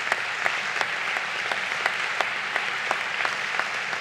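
Large audience applauding, many hands clapping at a steady level.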